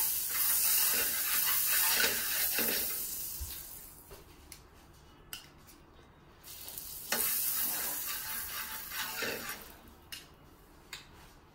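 Butter sizzling on a hot tawa griddle as a spoon spreads it around, with short scraping strokes of the spoon on the pan. The sizzle dies down about four seconds in and flares up again for a couple of seconds around the seven-second mark.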